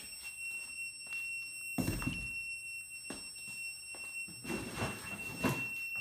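Klein Tools carbon monoxide meter sounding its alarm, a steady high-pitched tone, set off by a reading of about 1,700 ppm carbon monoxide. Dull thumps from handling or footsteps about two seconds in and again near the end.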